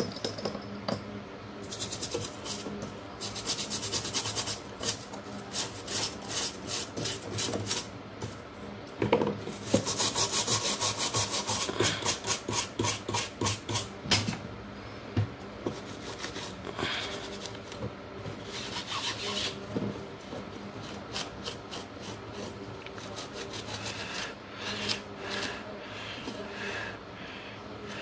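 Rapid back-and-forth scrubbing on a phone's circuit board, in several bursts of quick strokes with the longest around the middle, as dirt and residue are cleaned off the board beside the power amplifier chip.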